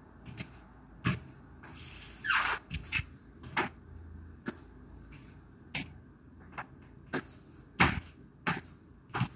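High-heeled sandals clicking on a laminate floor at an unhurried walking pace, sharp single taps spaced about half a second to a second apart, with one falling swish about two seconds in.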